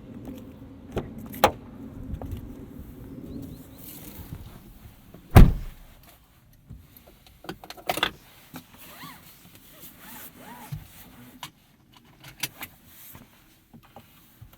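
A car door, likely the Hyundai Kona Electric's, shuts with one loud thud about five seconds in. Around it are scattered clicks, knocks and rustling, as of someone handling things inside the car.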